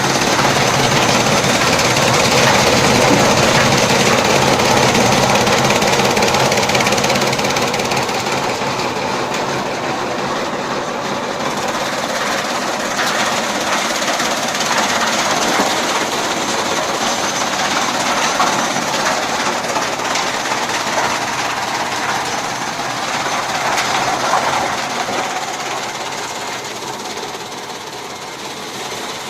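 Chaff cutter machine running, a loud, steady mechanical noise that eases off somewhat near the end.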